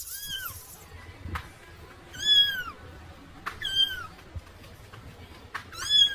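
Kitten meowing: four short, high meows a second or two apart, each rising and then falling in pitch, the second and last the loudest.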